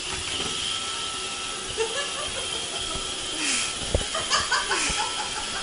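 Vacuum cleaner running, a steady motor hum with hiss and a faint whine. About four seconds in come a sharp thump and a few short pitched sounds.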